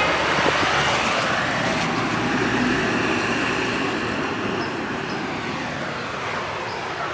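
City street traffic, with a motor vehicle going by close at hand and its noise slowly fading away.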